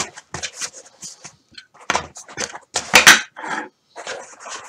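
Packaging being handled: a run of short plastic rustles and crinkles with a few knocks, loudest around two and three seconds in.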